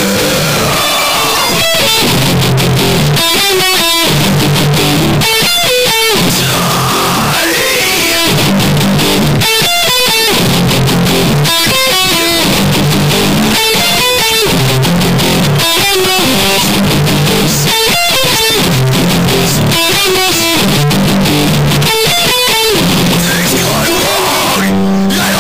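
Home-recorded electric guitar playing a loud, repeating riff, with low notes returning in a pattern about every two seconds and a few bent, gliding notes, recorded with a computer's sound recorder.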